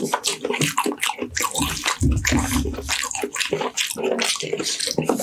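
Close-miked wet chewing and lip-smacking of roast meat eaten by hand, with many small irregular clicks and squelches.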